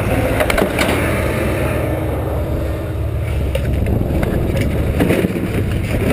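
Vehicle on the move: a steady low rumble of engine and road noise with a few light rattles.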